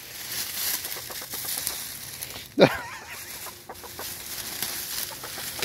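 A hen clucking once, sharply and much louder than the rest, about halfway through, while dry oak leaves crackle and rustle faintly under her as she shifts.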